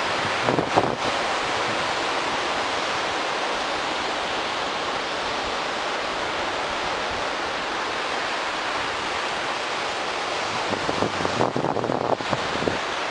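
Ocean surf breaking on the offshore reef, a steady wash of wave noise, with wind buffeting the microphone in gusts about half a second in and again near the end.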